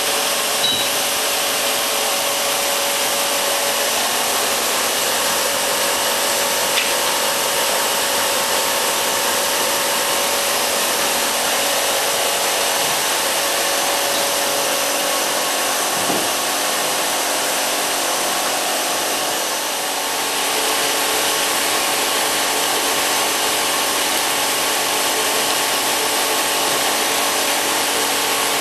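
Blower-type humidifier for a swiftlet house running: a loud, steady rushing hiss of fan air and mist with a faint hum under it, dipping slightly about two-thirds of the way through.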